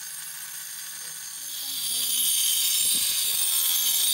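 Handheld angle grinder running with a high whine, then cutting into a floor tile from about a second and a half in, the cut much louder and hissier than the free-running disc.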